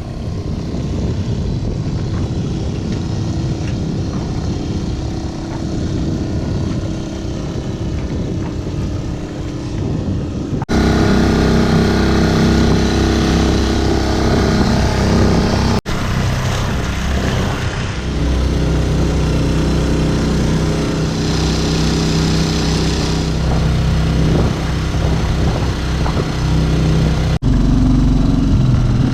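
Honda four-stroke dinghy outboard running steadily under way, in several clips joined by abrupt cuts.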